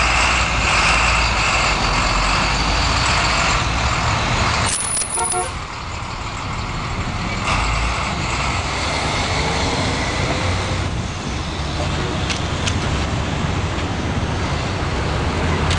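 Street traffic: a large vehicle, a bus or truck, passing close by with its engine running over steady road noise. The sound drops out briefly about five seconds in.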